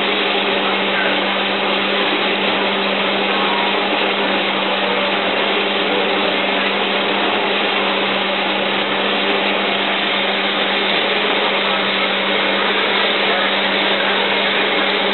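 A machine running steadily: an even whirring noise with a constant low hum.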